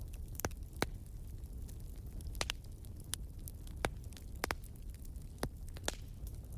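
Fire crackling: sharp, irregular pops and snaps, roughly one every half second to second, over a steady low rumble.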